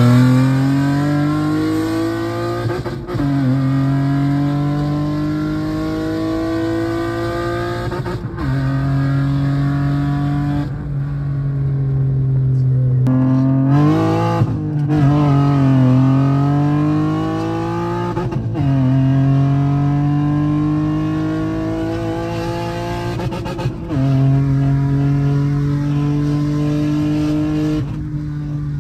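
2013 Nissan Maxima's 3.5-litre V6, swapped to a six-speed manual, accelerating hard, heard from inside the car. The engine note climbs in pitch and then drops sharply at each gear change, about six times.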